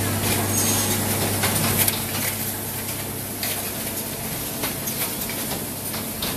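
Automatic coat hanger production line machinery running: steady hissing with frequent clicks over a low hum, the hum cutting out about two seconds in.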